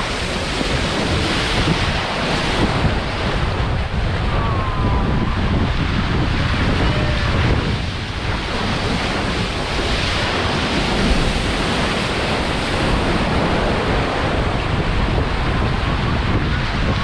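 Wind buffeting the microphone over the steady rush of open-ocean waves, loud and unbroken.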